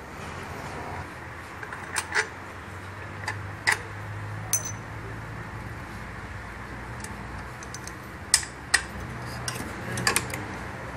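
Hand tools clicking and clinking against metal engine parts during disassembly: several sharp metallic clicks spread unevenly over a steady low hum.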